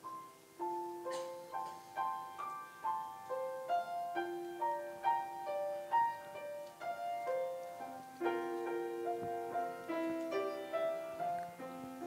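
Piano playing the introduction to a song: a melody of single notes over chords, starting about half a second in.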